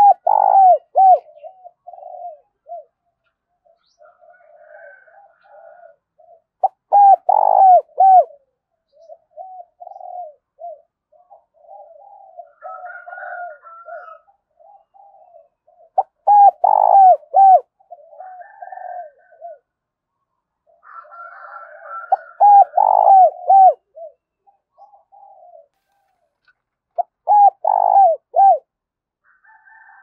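Spotted dove cooing its song close to the microphone: five loud phrases of about a second and a half, each a few seconds apart, with softer cooing between them.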